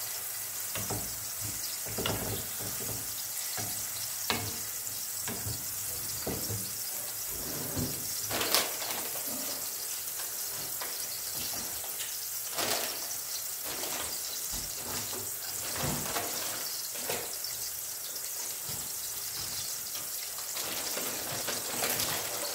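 A tomato sauté sizzling steadily in a pan, with scattered knocks of a utensil against the pan as it is stirred.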